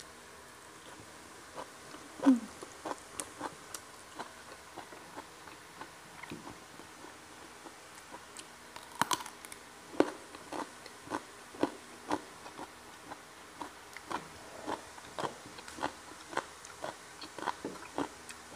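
Close-miked eating sounds: crisp bites and steady chewing of rice, fried catfish and raw vegetables, the sharpest bite about two seconds in. The chews come about twice a second.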